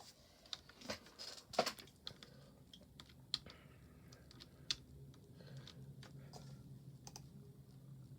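Inline skate (rollerblade) wheels rolling over pavement: a faint steady low rumble, with scattered sharp clicks and ticks that are thickest in the first couple of seconds.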